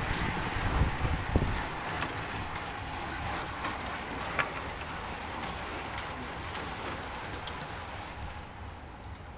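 Road racing bicycles passing close by in a criterium: a steady rush of tyre hiss and moving air, with a few light clicks. Wind buffets the microphone in the first second or so, and the sound eases off near the end.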